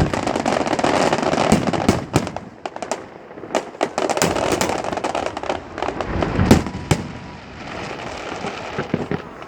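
Fireworks going off: a dense stretch of crackling for the first two seconds, then many separate sharp bangs and crackles, with a deep boom about six and a half seconds in and another just before seven.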